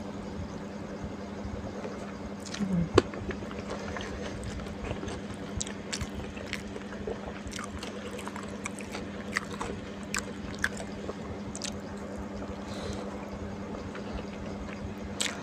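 Close-miked chewing and wet mouth sounds of someone eating fried flat rice noodles and wontons, with scattered small clicks and a sharp click about three seconds in. A steady low hum sits underneath.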